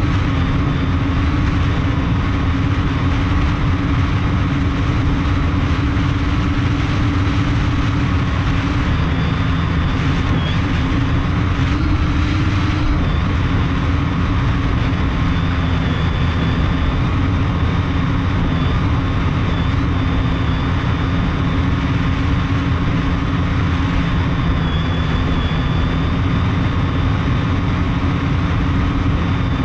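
Brushless motors and propellers of a multirotor drone, heard from a camera mounted on its frame: a loud, steady hum with a higher whine over rushing air, its pitch wavering slightly about 12 to 13 seconds in.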